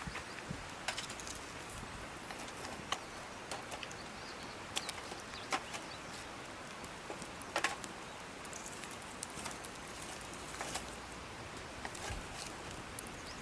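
Wood campfire crackling: irregular sharp pops and snaps over a steady soft hiss.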